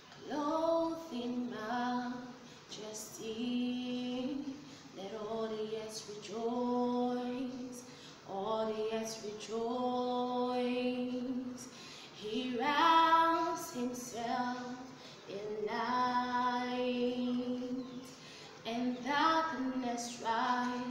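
A woman singing solo and unaccompanied, in long held notes grouped in phrases with short breaks between them.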